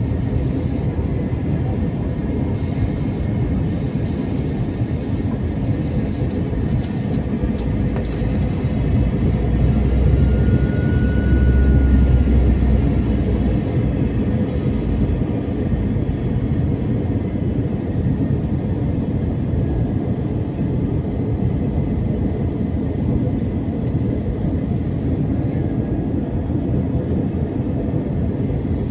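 Airliner cabin noise: the steady rumble of the jet engines and rushing air, heard from inside the cabin. It swells and deepens for a few seconds about ten seconds in, then settles back.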